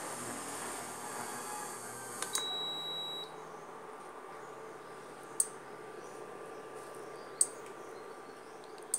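A steady high hiss stops about two seconds in with a click and a single short electronic beep, under a second long. Two sharp clicks follow a few seconds later.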